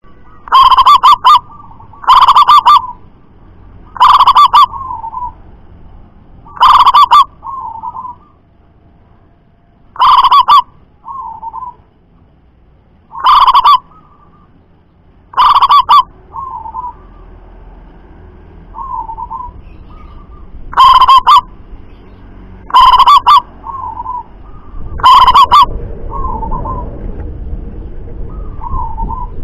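Caged zebra dove (perkutut) singing: about ten loud cooing phrases, one every two to three seconds with a pause in the middle, each followed by a softer trailing note. The loudest phrases hit full scale and distort.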